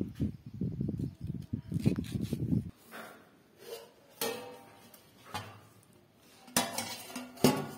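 A low rumbling noise that cuts off abruptly about two and a half seconds in, then a stainless-steel plate used as a lid clinking against a steel cooking pan as it is handled and lifted off. The clinks come as a few sharp, briefly ringing metal knocks, the loudest near the end.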